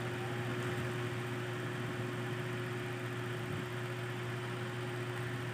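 Steady low electrical hum over a faint even hiss: background room tone with no distinct event.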